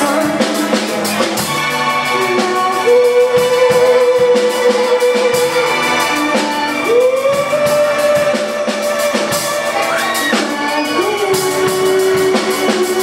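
Live rock band playing: a young woman singing over keyboard, electric guitar, bass guitar and drum kit.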